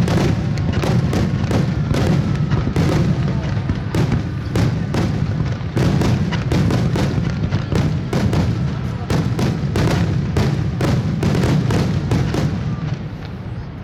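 A rapid fireworks barrage: shells bursting several times a second over a continuous low rumble, thinning out near the end.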